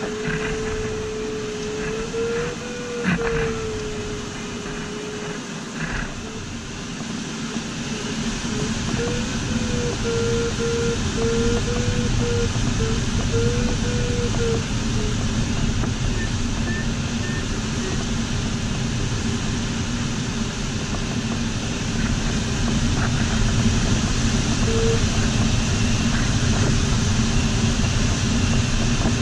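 Steady rush of air over a sailplane's canopy inside the cockpit, growing louder several seconds in. Over it an electronic variometer tone wavers in pitch, breaks into a run of short beeps for a few seconds, then drops out.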